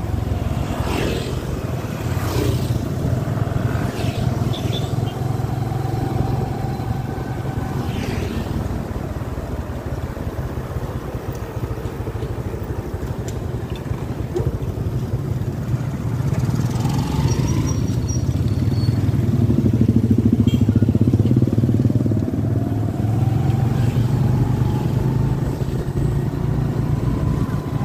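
Motorcycle engine running steadily, heard from the rider's own bike while riding along a road. Its note climbs and it grows louder about two-thirds of the way through.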